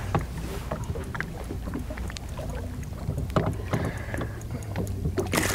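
Wind rumbling on the microphone and water against a boat's hull, with scattered light knocks and ticks.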